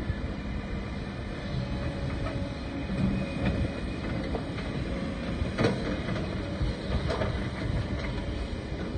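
Kobelco SK140 hydraulic excavator's diesel engine working under load as the bucket digs into rock. Several sharp clanks of rock against the steel bucket come through, the loudest just past the middle.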